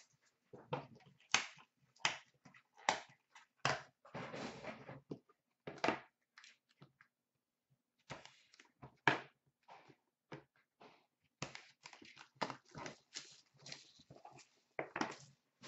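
Cardboard trading-card boxes and packaging being handled and opened by hand: a run of short rustles, scrapes and taps, with a longer rustle about four seconds in.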